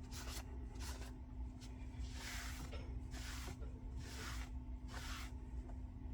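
Rag wiping oil and metal chips off the base of a machine vise: several short swishing strokes, about one a second, over a steady low hum.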